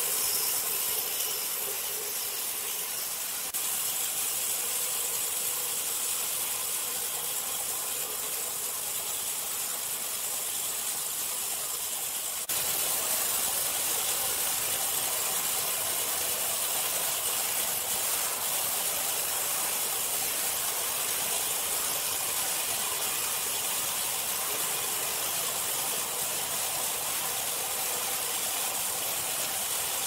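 Horizontal band sawmill blade cutting lengthwise through a large log, a steady hiss over the running machine, stepping slightly louder twice.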